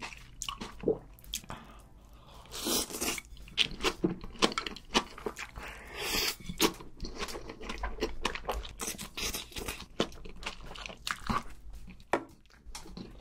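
Close-miked mouth noises of eating black-bean-sauce instant noodles (jjapaghetti) wrapped in green onion kimchi: wet chewing and crunching with many small smacks, and two longer slurps, about three seconds in and about six seconds in.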